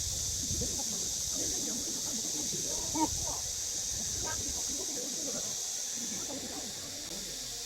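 A steady high-pitched hiss or buzz that partly drops off about six seconds in, with faint voices murmuring underneath.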